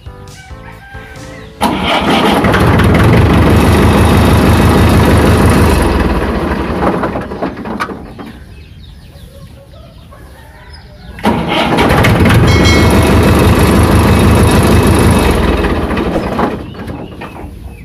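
Tractor's electric starter motor, fitted with a freshly repaired solenoid, cranking the diesel engine in two runs of about five seconds each, with a pause between them.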